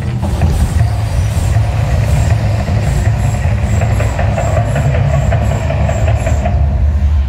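Mirage volcano eruption show: a loud, deep continuous rumble with a rapid run of short bursts, about three a second, as the gas flames shoot up from the volcano and fireballs flare across the lagoon. The bursts stop about six and a half seconds in, while the rumble carries on.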